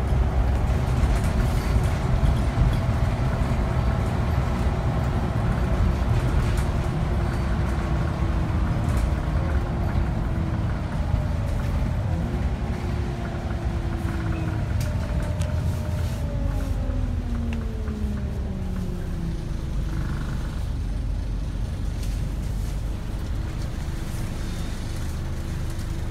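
Scania Omnicity (CN94UB) single-deck bus heard from inside while under way: engine and road rumble with the whine of its ZF automatic gearbox. The whine rises a little in pitch a third of the way in, then falls steadily over several seconds around the middle as the bus slows.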